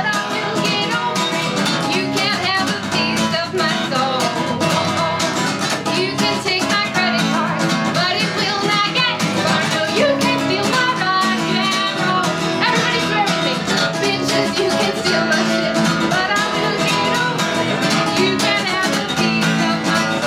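Steel-string acoustic guitar strummed in a steady rhythm while a woman sings along, live and unamplified.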